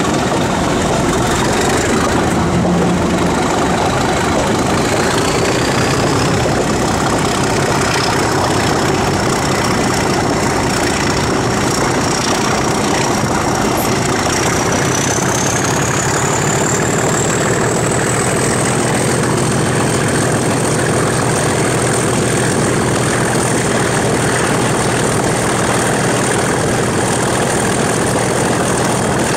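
Class 37 diesel locomotive's English Electric V12 engine working hard, heard close from beside the cab, with a high turbocharger whistle that rises in pitch about five seconds in and again from about fourteen to nineteen seconds, then holds steady.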